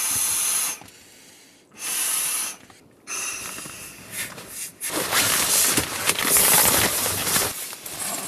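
Two strong breaths blown into the valve of an inflatable camping pillow, each a hiss lasting about a second, topping it up by mouth. From about five seconds in, loud rustling and crinkling of nylon fabric as the pillow and a stuff sack are handled.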